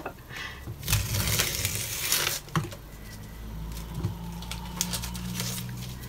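Masking tape being peeled off paper and crumpled into a wad in the hand: crinkling and rustling with a few sharp clicks, busiest in the first couple of seconds.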